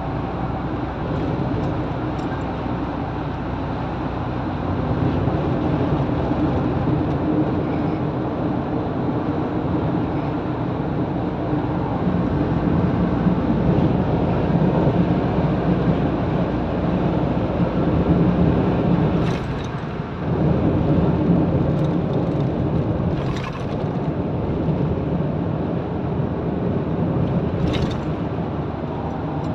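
Steady road and engine noise from a moving car, heard from inside the cabin, with three brief clicks in the second half.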